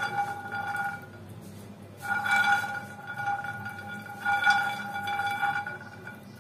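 Peanuts rattling and rolling around a nonstick frying pan as it is shaken on a gas stove during dry-roasting. The pan is shaken in three bouts with short pauses between, and each bout carries a steady ringing tone.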